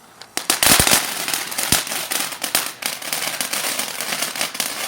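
A ground fountain firework (Boomer Jade Flower Fountain) going off about a third of a second in. It gives a sudden loud burst of crackling pops, then settles into a steady hissing spray of sparks with frequent crackles.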